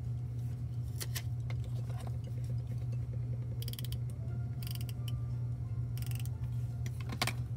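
Handheld adhesive tape runner rolled in several short rasping, ratchety strokes across the back of a paper die-cut, with a few light paper clicks, over a steady low hum.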